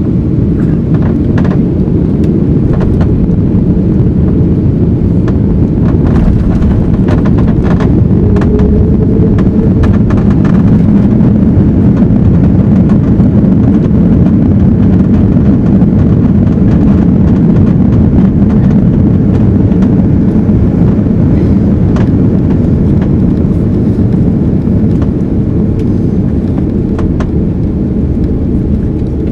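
Airbus A330-300 touching down and rolling out, heard inside the cabin: a loud, continuous low rumble with scattered rattles and knocks in the first few seconds. The rumble swells to its loudest a little after ten seconds in, with the ground spoilers up as the aircraft slows on the runway, then eases off near the end.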